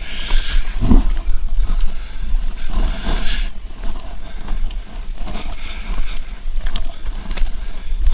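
Heavy breathing of a man climbing a steep trail, the breaths swelling and fading about once a second. A steady low rumble of wind and handling noise lies on the microphone under it, with the rub and tick of the mic cord.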